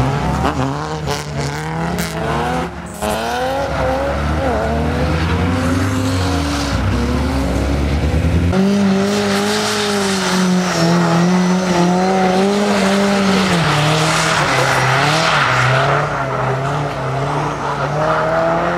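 Lada car engines revving hard as the cars drift on snow, the engine note climbing and falling again and again. About halfway through, a higher engine note takes over and is held at high revs for several seconds before it drops and wavers, with a rushing noise from the spinning wheels building near the end.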